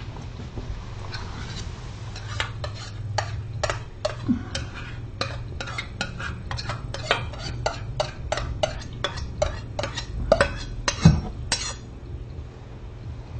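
A spoon clinking against a small dish as something is stirred: quick light taps, two or three a second, starting about two seconds in and stopping near the end, over a steady low hum.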